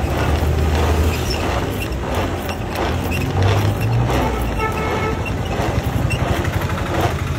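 Hand-lever-driven mixer jar churning pineapple juice, its gears clattering in repeated strokes, over steady street traffic noise. A vehicle horn sounds briefly about halfway through.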